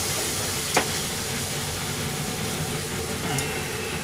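Sukiyaki broth simmering in a pot on a gas stove, a steady hiss, with a sharp click about a second in.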